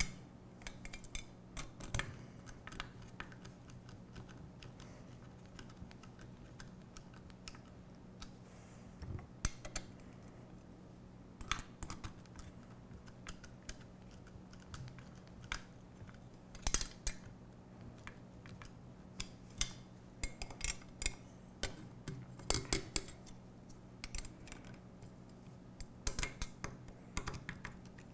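Nut driver and wrench clicking and clinking on M3 hex cap bolts and nylock nuts as they are tightened, in scattered short runs of small metallic clicks. A faint steady low hum lies underneath.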